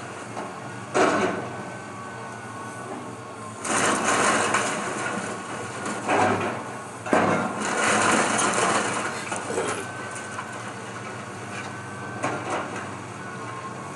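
Excavator demolishing a wood-frame house: crunching and crashing of splintering wood and falling debris in several bursts, the longest from about four to nine seconds in, over the steady running of the excavator's engine.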